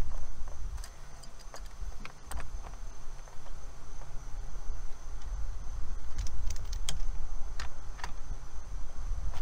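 Light metallic clicks and clinks of an open-end wrench and a torque wrench being handled and fitted onto a brass flare nut on copper tubing, scattered through and thickest near the end, over a low uneven rumble and a steady high insect buzz.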